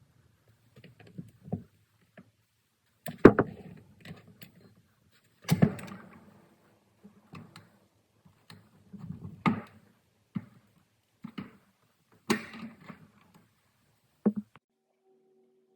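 Irregular knocks and clatters of tools and parts being handled while a diesel fuel injector is reassembled, a dozen or so separate hits with short gaps between, the loudest a few seconds in.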